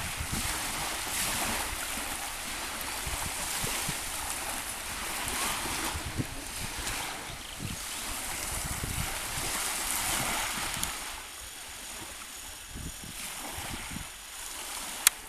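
Sea water washing and splashing, swelling and easing every couple of seconds, with wind rumbling on the microphone. A sharp click near the end.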